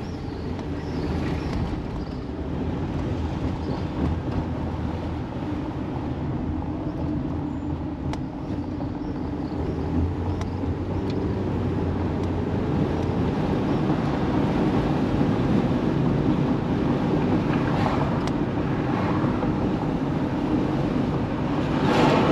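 Steady engine and road noise of a moving car heard from inside the cabin, growing louder over the second half.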